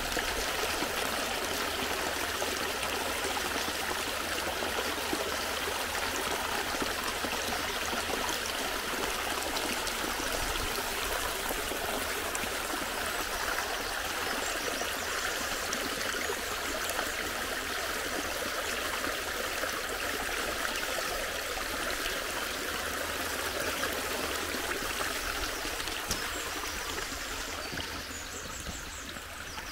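Shallow meltwater stream running and splashing over gravel and stones, a steady rushing babble that gets a little quieter near the end.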